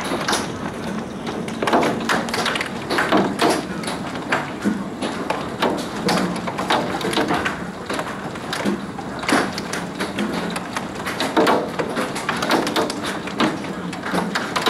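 Hailstorm: hailstones, some quarter-sized, pelting down in a dense, irregular stream of sharp hits over a steady hiss.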